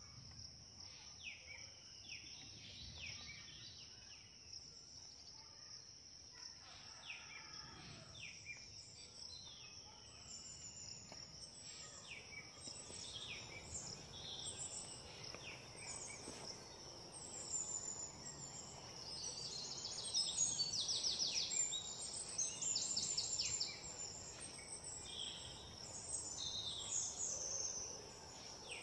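Outdoor ambience: a steady high insect drone with many birds chirping over it. About two-thirds of the way through, a run of fast trilled calls is briefly the loudest thing.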